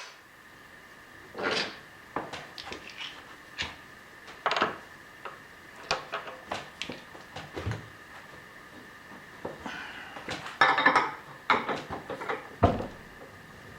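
Metal tooling being handled while a drill chuck is fitted to a Bridgeport milling machine: scattered metal clinks and knocks, a burst of rattling about two-thirds of the way through, and one sharper knock near the end.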